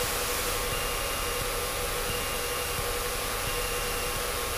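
Steady cabin drone of a Cessna 152's engine and propeller with power pulled back on final approach, heard as an even hiss with a faint steady hum.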